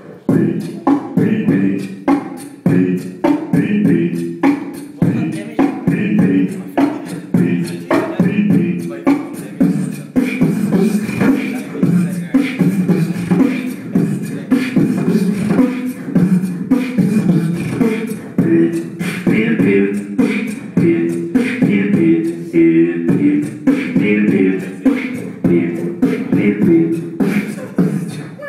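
Beatboxing into a handheld microphone: a steady, continuous rhythm of sharp vocal drum clicks and hits layered over pitched vocal bass notes.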